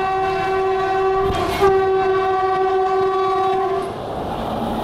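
Electric locomotive's horn sounding one long steady blast as it passes close, broken by a brief loud bang about a second and a half in. The horn stops near the end, leaving the rumble of the train's wheels on the rails.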